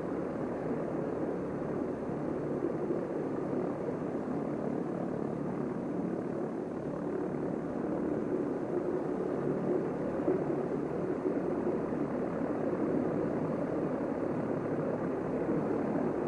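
Small training airplane's engine and propeller running steadily, heard inside the cockpit as a low, even drone.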